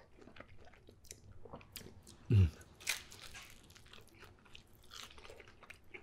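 Close-miked eating of an Alfredo-sauce pizza slice: bites into the crust, soft crunches and wet chewing clicks. A short falling hum from the eater a little after two seconds is the loudest sound.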